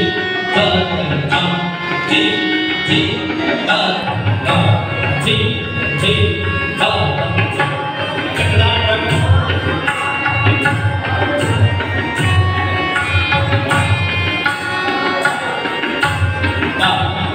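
Live Indian classical accompaniment for Kathak dance: a tabla played in a steady rhythm, with a sustained melodic line over it.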